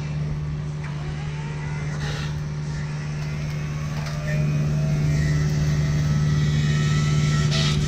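Kubota U55-4 mini excavator's diesel engine running with a steady low hum as it drives an MTL XC5 brush cutter, with faint gliding whines over it. The sound steps up louder a little past halfway.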